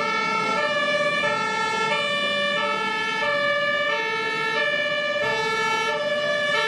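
Two-tone emergency siren alternating evenly between a high and a low note, each held about two-thirds of a second.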